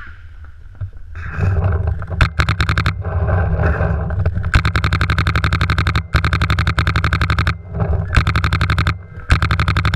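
Paintball marker firing rapid strings of shots, about a dozen a second, in several bursts broken by short pauses, the longest lasting over a second.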